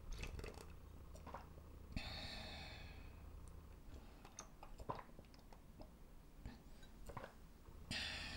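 Faint scattered small clicks and a brief rustle about two seconds in; near the end, a white ceramic bowl is set down on a linen cloth, with a short rustle of the fabric.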